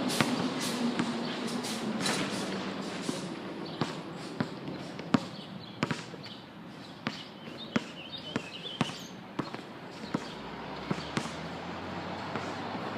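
A basketball bouncing during shooting practice: a string of sharp, irregularly spaced thumps, about a dozen in all.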